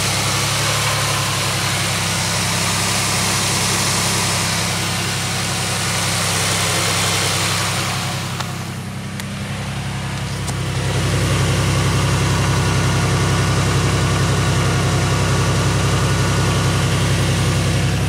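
Pontiac Aztek GT's 3.4-litre V6 idling with a steady low hum. It dips slightly about eight seconds in, then runs louder and fuller.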